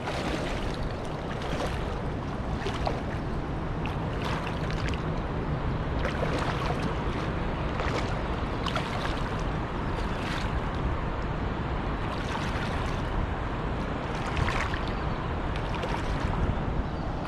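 Strong wind buffeting the microphone, with water sloshing and splashing around a man's legs as he wades slowly through a shallow river, an irregular splash about every second.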